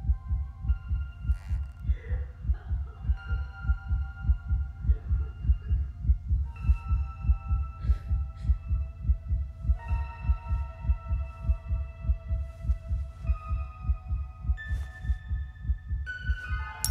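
Deep heartbeat-like throb, about three pulses a second, under held high musical tones that move to a new chord every few seconds: a tense underscore.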